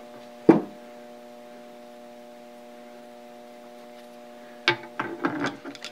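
A sharp knock about half a second in, then a few small knocks and clicks near the end as metal dividing-head parts are handled on the workbench, over a steady electrical hum.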